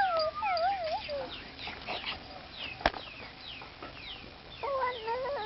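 A puppy whining in wavering, rising-and-falling tones in the first second and again near the end, over many short, high, falling peeps from birds. One sharp click about three seconds in.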